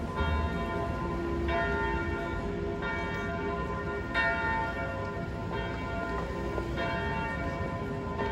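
Church bells tolling, a fresh ringing stroke a little over a second apart, over a low rumble.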